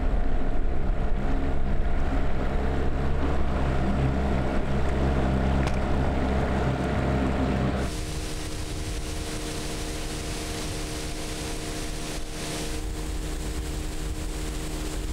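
Motorboat engine running steadily. About eight seconds in, the sound switches abruptly from a loud, deep hum to a quieter, higher-pitched engine hum.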